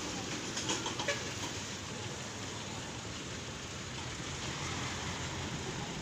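Steady rumble and hiss of truck traffic passing on a highway, with a few light knocks in the first second.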